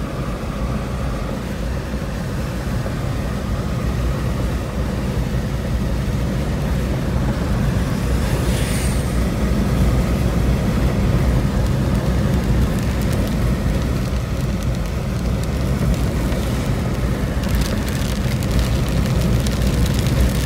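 Car cabin noise while driving on a wet road in rain: a steady low engine and road drone with tyre and rain hiss, a brief swish about eight seconds in, and the hiss and spatter growing louder in the last few seconds.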